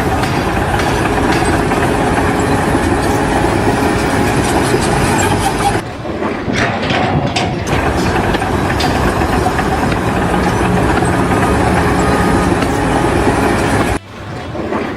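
Heavy machinery running: a loud, continuous mechanical rumble with clatter, broken by abrupt drops about six seconds in and near the end.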